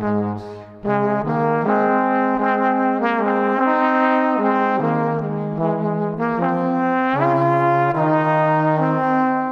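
Background music: a melody of long held notes that change pitch every second or so, with a short break about a second in.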